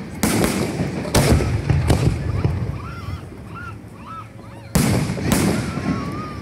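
Aerial fireworks bursting: a series of sharp booms, each trailing off in a rumble. Three come in the first two seconds, then there is a quieter lull, and two more come close together about three-quarters of the way through.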